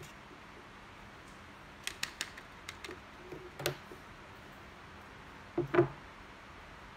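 Light clicks and taps of hands handling paper boxes and a roll of tape on a wooden table, with a pair of louder knocks near the end.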